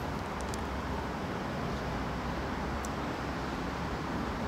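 Steady outdoor urban background noise, a low, even rumble typical of distant road traffic, with a couple of faint, brief high chirps.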